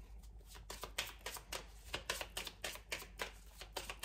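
Oracle cards being shuffled by hand: a quick, irregular run of short card flicks and slaps.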